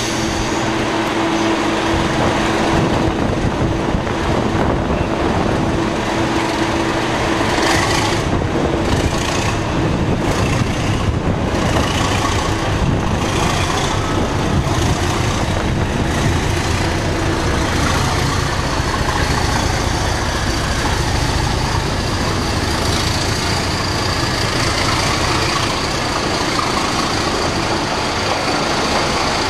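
Class 37 diesel locomotive pulling away close by, its English Electric engine running with a steady low tone for the first half. Then the coaches roll past, with a high, steady wheel squeal over the last several seconds.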